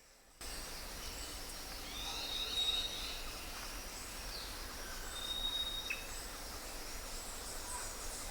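Birds calling outdoors: several thin, high whistled notes and short chirps over a steady background hiss. The sound cuts in abruptly about half a second in.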